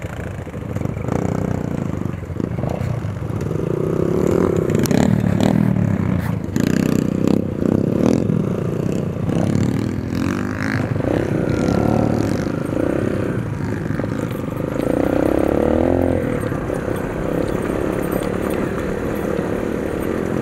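Dirt bike engines running and revving as the bikes pull away and ride along a gravel track, the revs climbing and dropping several times through the gears.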